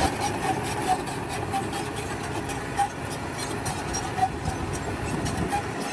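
Machinery running steadily, with many quick light clicks over the noise.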